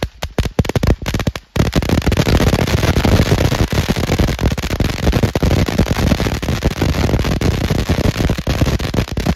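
Ground fountain firework going off with a crackling effect: separate sharp pops at first, then from about a second and a half in a dense, continuous crackle.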